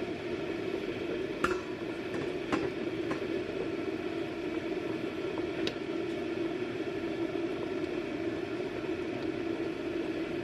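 A stainless stockpot of broth boiling hard on a gas burner, a steady sound throughout. A few sharp metal clinks from the lid and tongs against the pot come in the first six seconds.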